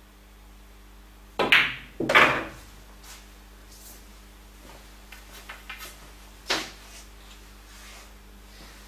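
Pool cue tip striking the cue ball, then about half a second later the cue ball clacking into an object ball, which goes into a pocket. A few light knocks and one more sharp click of ball or cue follow a few seconds later.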